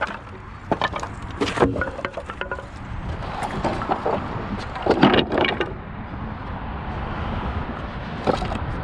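Dumped wooden boards being handled and pulled at, giving scattered knocks and cracks of wood, with a cluster of knocks about halfway through, over a steady low rumble.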